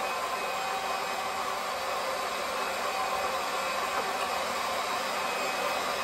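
Pump running steadily, drawing water out of a gas water heater's tank with the cold supply closed; an even whirring hiss with a faint hum.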